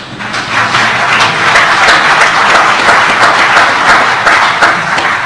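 Audience applauding, a dense spread of handclaps that tapers off near the end.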